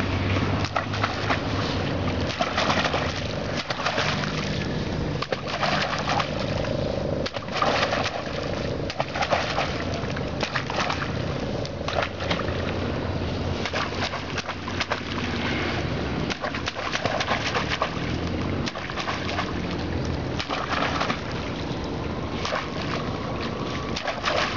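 Doves cooing over a steady rushing noise with frequent short crackles.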